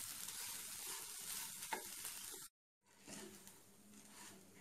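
Basmati rice frying in ghee and oil in a nonstick pan, sizzling, with a wooden spatula scraping through the grains as it is stirred. The sound drops out for a moment a little past halfway, then the sizzle and stirring carry on more quietly.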